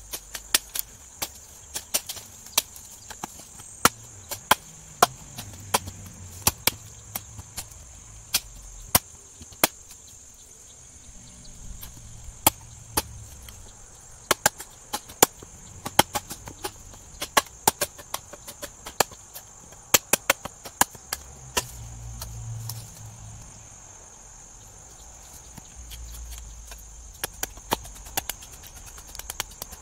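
Large 1095 carbon-steel camp chopper knife chopping into a branch on a stump: sharp, irregular chops, often several a second. Insects buzz steadily high in the background.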